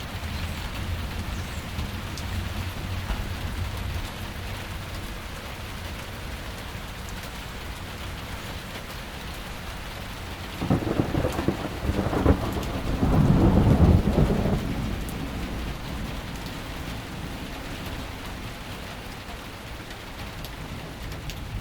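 Steady rain falling, with a rolling peal of thunder about halfway through that cracks in, swells to its loudest a few seconds later and rumbles away.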